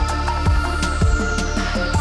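Electronic background music with a steady beat, about two beats a second, and a sweep falling in pitch.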